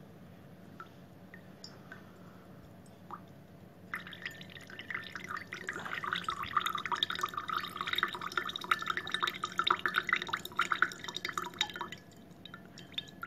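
Water trickling and dripping from a polystyrene foam bowl into a drinking glass. It starts about four seconds in as a fast, crackly patter, runs for about eight seconds and stops abruptly near the end.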